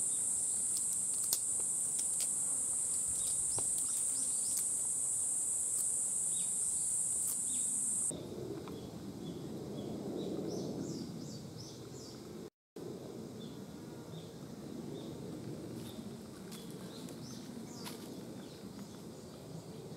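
A steady, high-pitched insect drone that cuts off suddenly about eight seconds in. After that, a low, even rustling noise with faint short high chirps.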